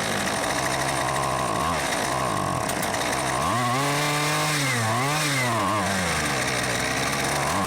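Husqvarna 128R brushcutter's two-stroke engine running at idle, then revving up about three seconds in, dipping, rising again and dropping back to idle. The engine has a defective carburettor that needs replacing.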